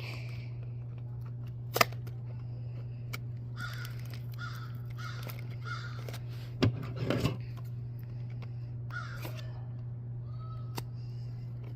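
A toy box's packaging being worked open by hand: scattered clicks and plastic-and-cardboard crinkling, a sharp click about two seconds in, and a louder squeaky scrape around seven seconds in, over a steady low hum.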